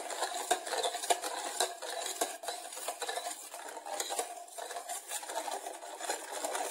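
Steel spoon stirring liquid in a stainless steel bowl, with irregular clinks and scrapes of the spoon against the bowl: instant coffee and sugar being dissolved in boiling water.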